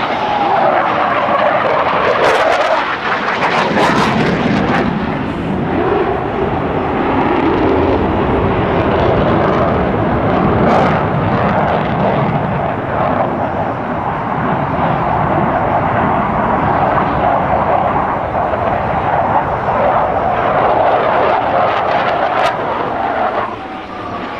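Twin-engine jet noise from a formation of F/A-18 Hornets passing low overhead. A falling whine at the start marks them going by, then a loud, steady jet rumble follows, with a few sharp crackles. It eases a little near the end.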